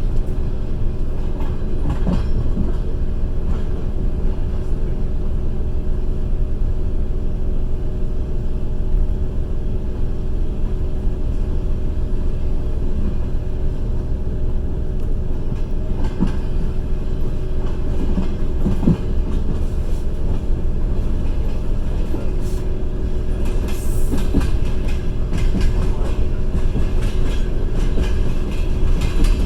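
Passenger train running along the line, heard from inside a carriage at the window: a steady low rumble and hum of the wheels and coach, with now-and-then clicks of the wheels over rail joints.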